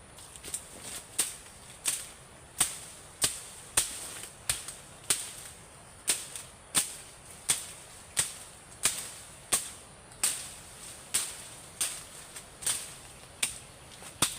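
A steady series of sharp strikes or cracks, about three every two seconds, each with a short ringing tail, over a faint steady high-pitched whine.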